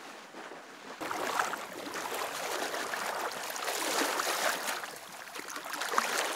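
Shallow river water splashing around a wading angler's legs. About a second in it turns suddenly louder and closer, with irregular splashes as a trout is drawn into a landing net at the surface.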